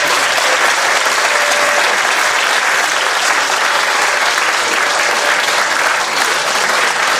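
Audience applauding: a large crowd clapping steadily and loudly, starting suddenly just before and holding throughout.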